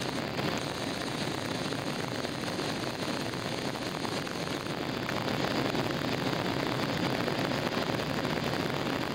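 Steady cabin noise of a jet airliner in flight shortly after take-off: the drone of the engines and the rush of air past the fuselage, heard from a window seat, growing a little louder about five seconds in.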